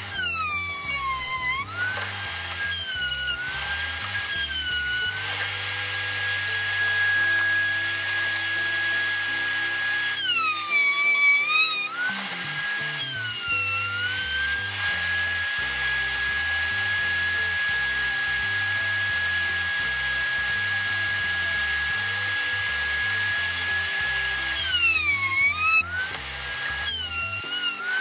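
Table-mounted router motor running at full speed with a steady high whine. Several times its pitch dips and recovers as the bit cuts into the plywood workpiece and the motor slows briefly under load.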